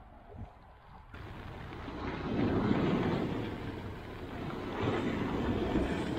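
Small waves breaking and washing over a rocky beach: a rushing wash that starts suddenly about a second in and swells twice.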